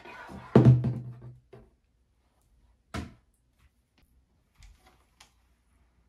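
Handling noise from the unboxed kit: a short ringing clatter in the first second and a half, a sharp click about three seconds in, then a few faint clicks.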